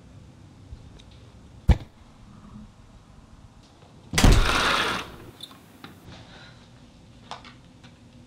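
A sharp knock, then a couple of seconds later a loud, sudden burst of noise that fades within a second, with a few faint clicks near the end.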